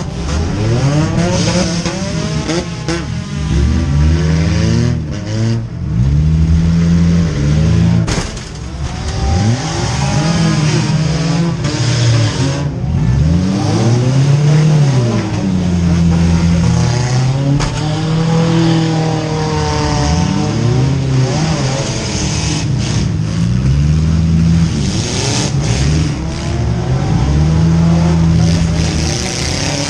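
A demolition-derby car's four-cylinder engine, heard from inside the stripped-out cabin, revving up and falling back again and again as the car is driven hard back and forth. There is one sharp bang from a hit about eight seconds in.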